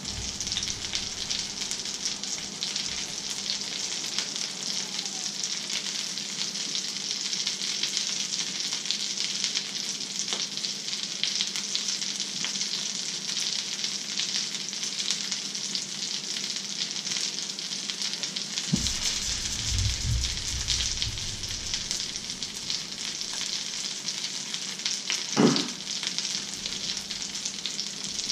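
Fish fingers sizzling steadily in a frying pan. There is a short low rumble about two-thirds of the way through and a single knock near the end, the loudest sound.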